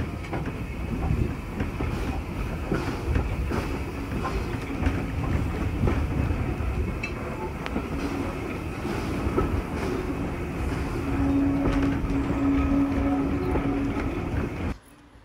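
Vintage railway carriage rolling along jointed track, heard from an open window: a steady rumble with scattered clicks from the wheels over the rails. A steady low hum joins in about eight seconds in, and the sound cuts off suddenly near the end.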